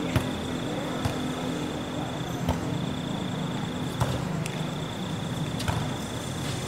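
A volleyball being struck by hands during a rally: about five sharp smacks at uneven intervals, over background chatter.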